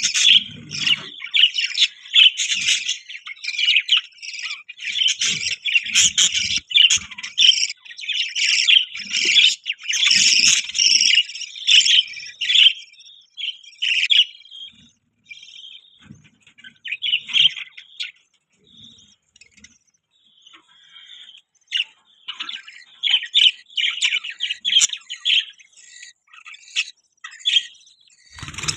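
Budgies (budgerigars) chirping and chattering, with a flock's overlapping calls coming in dense runs, thinning out about halfway through and picking up again near the end.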